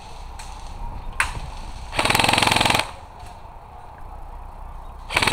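Airsoft electric gun firing on full auto: a rapid burst of under a second about two seconds in, and another burst starting near the end. A single sharp crack about a second in.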